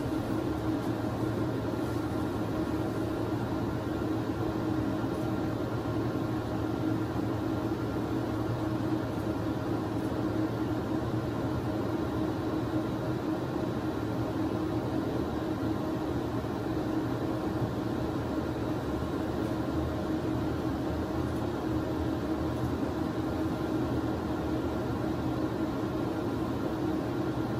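Steady machine hum with a hiss of air noise, unchanging throughout, with a low hum and a few faint steady whining tones above it.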